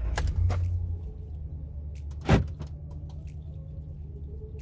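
Dodge Ram 1500 pickup's engine running at a steady idle, heard from inside the cab, a little louder in the first second. A single sharp click about two seconds in.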